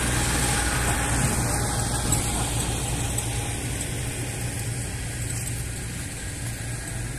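Steady low engine hum that slowly fades.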